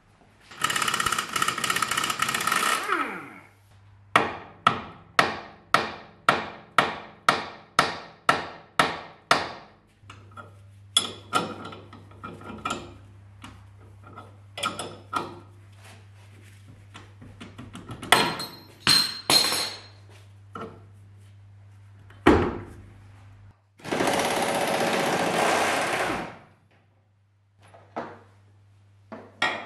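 Hand-tool work on a Saab 900's front suspension and steering rack. About a dozen hammer blows on metal come evenly at about two a second, among scattered metal clicks and knocks. Near the start and again near the end there is a steady, loud burst of about two seconds.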